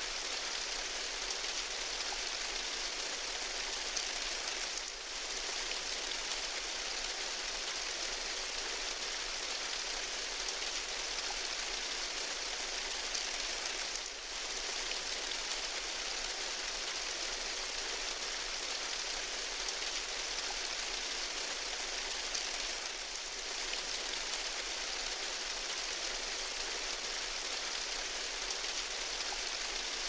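Steady rain falling on a corrugated tin roof, a dense even patter with a few brief dips in loudness.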